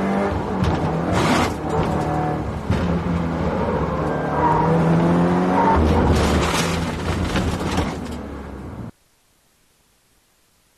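Subaru Impreza WRX STI's turbocharged flat-four engine running hard, its pitch rising and falling repeatedly as the car accelerates and shifts. The sound cuts off abruptly near the end.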